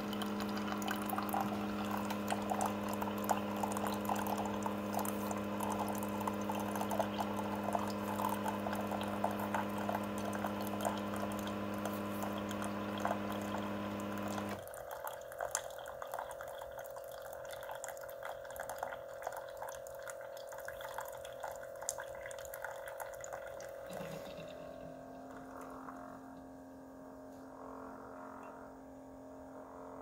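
Keurig K-Duo single-serve brewer dispensing coffee into a ceramic mug: the machine hums steadily while the stream splashes into the cup. About halfway through, the hum cuts off suddenly and the flow thins to a fainter trickle and drips as the brew finishes.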